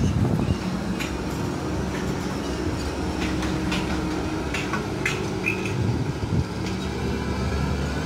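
CLAAS Lexion 670 combine harvester driving past at close range, its diesel engine running steadily, with scattered rattles and clanks through it.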